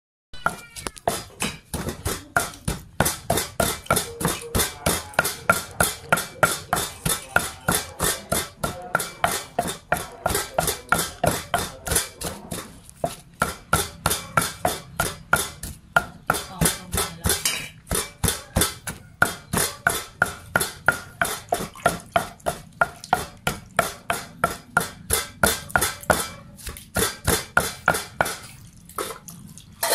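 A pestle pounding rhythmically in a glazed clay mortar, mashing fish with chilies and shallots, about two strikes a second with a few brief pauses.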